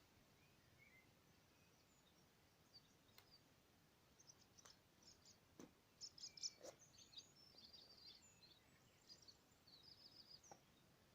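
Faint birdsong: scattered high chirps and short trills starting a few seconds in, with two soft clicks near the middle.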